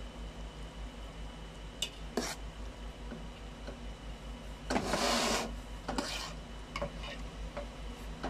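A metal spoon scraping and stirring cooked biryani rice in a metal pot: a few short scrapes, with one longer, louder scrape about five seconds in. A low steady hum runs underneath.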